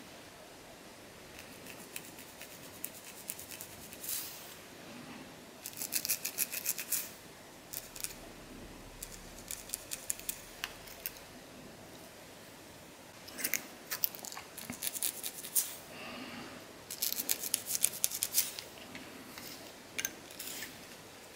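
A long fingernail scratching and scraping at a dandruff-covered scalp and hair, loosening the flakes, in short bursts of rapid crisp scratches with quieter pauses between.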